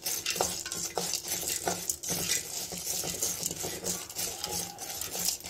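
A spoon stirring and scraping whole spices and lentils around a metal kadai, in repeated irregular strokes, as they are dry-roasted in a little oil. A faint frying sizzle runs underneath.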